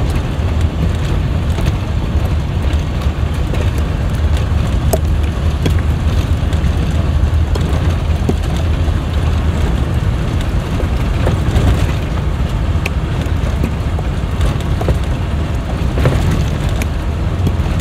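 Converted school bus driving over a rough dirt road: a steady, loud low rumble of engine and tyres, with a few brief sharp rattles from the bumps.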